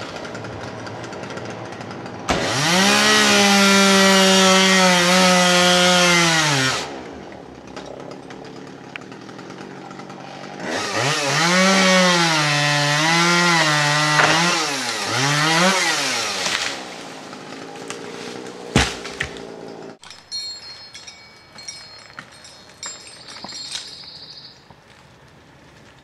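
Chainsaw opened to full throttle twice, for about four and then six seconds, dropping back to idle between runs. In the second run the pitch dips and recovers several times as the chain cuts into wood. A sharp snap comes near the end, then quieter sounds.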